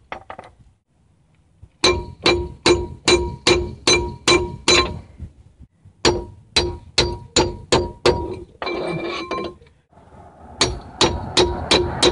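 Hammer blows on a steel drift knocking a pinion bearing race out of a Dana 30 axle housing: runs of quick strikes, about three a second, each with a metallic ring, pausing twice between runs.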